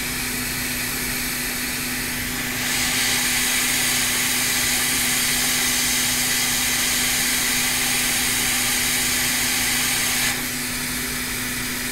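Steady hiss of blowing air from soldering bench equipment over a low hum while a capacitor is soldered onto a laptop logic board. The hiss grows louder about two seconds in and drops back near the end.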